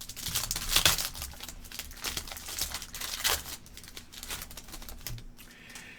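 Trading-card pack wrapper crinkling and tearing as the pack is opened, a quick run of crackles for the first few seconds, then quieter handling.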